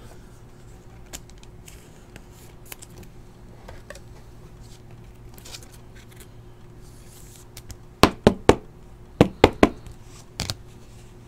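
Trading cards and packs being handled on a table: faint rustles and light clicks, then a run of sharp clicks and snaps about eight seconds in.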